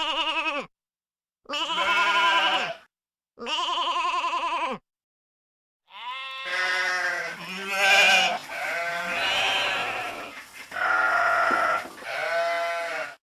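Sheep bleating: three separate quavering bleats, then from about six seconds in several bleats overlapping almost without a break.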